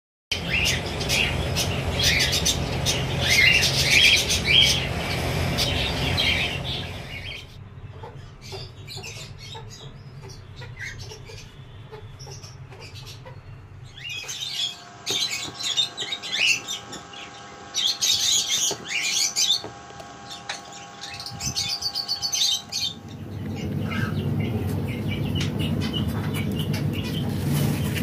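Small cage birds chirping in quick, high bursts over a low background rumble. The chirping is busiest in the first seven seconds and again in the middle, and quieter in between.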